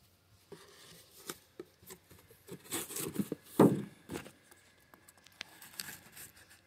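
Handling a cardboard mailing box and a folding pocket knife: scattered light taps, scrapes and knocks, busiest around the middle, with one louder knock just past halfway.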